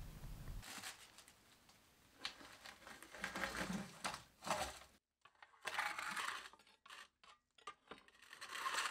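Metal baking pan set and slid on the hearth of a wood-fired masonry oven, then an iron poker scraping and raking the embers: a string of short scrapes and a few light taps.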